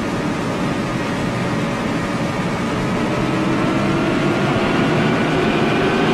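Gas turbine of a Navy hydrofoil running under throttle during takeoff, its tones rising slowly in pitch and growing louder from about halfway through as the throttle is advanced.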